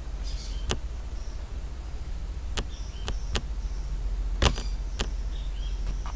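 Scattered sharp computer mouse clicks, about six at irregular intervals, over a low steady electrical hum.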